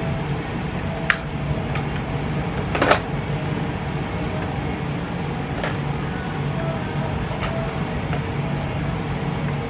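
Small plastic makeup items being picked up and handled, giving a few light clicks and taps over a steady room hum, the loudest clatter about three seconds in.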